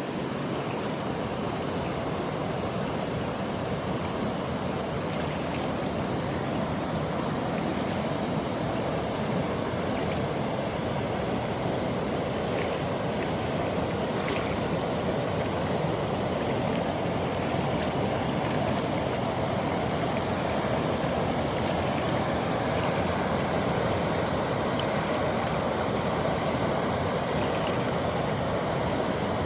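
A river flowing with a steady rushing noise.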